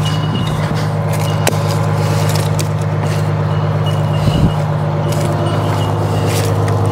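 Detroit Diesel two-stroke engine of a White 4000 semi truck idling with a steady, even low drone. A light click and a short knock come through about one and a half and four and a half seconds in.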